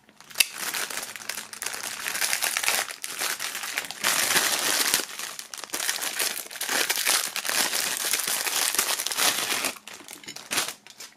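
Clear plastic film bag crinkling steadily as hands open it and pull out a belt with a metal buckle, with a few light clicks near the end.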